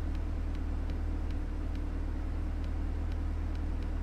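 Faint, irregular clicks from a laptop's touchpad and keys, about a dozen of them, over a steady low hum.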